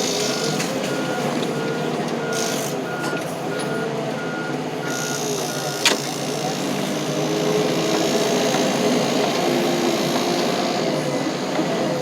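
A heavy earthmoving machine's backup alarm beeps steadily while the machine reverses, over its engine revving up and down. About six seconds in, the beeping stops with a sharp knock, and the engine keeps running.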